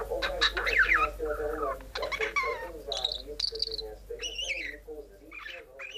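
Male budgerigar chattering and warbling: a run of quick chirps, clicks and whistled up-and-down glides over a wavering warble, growing sparser near the end.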